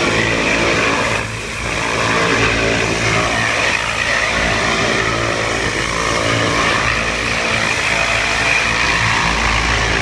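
Hot-water pressure washer spraying: the hiss of the jet from the wand over the steady running of the machine's motor and pump, dipping briefly a little over a second in.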